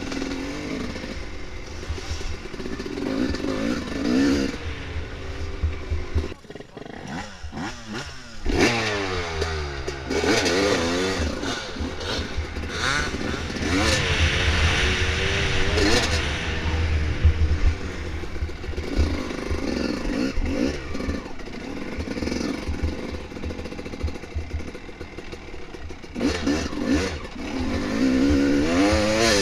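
Dirt bike engine revving up and down under changing throttle while riding a trail. The throttle backs off about six seconds in, then the pitch climbs again as it accelerates. A low rumble of wind and ground buffeting runs underneath.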